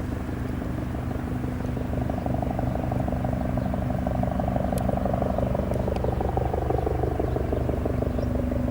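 Bell 412 twin-engine, four-bladed helicopter approaching, its rotor chopping fast and evenly under a steady engine and turbine tone. It gets a little louder about two seconds in, and a higher tone slowly falls in pitch through the second half.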